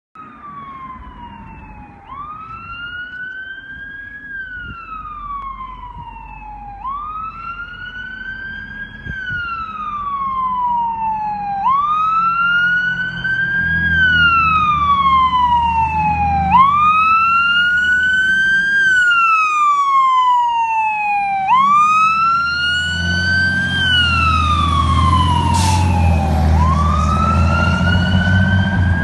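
Fire engine's Whelen electronic siren sounding the wail: a rising and falling tone that cycles about every five seconds, growing louder as the engine approaches. The truck's engine rumble joins in as it passes.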